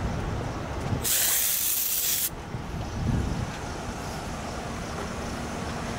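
A loud hiss about a second in, lasting just over a second and cutting off sharply, over steady outdoor background noise.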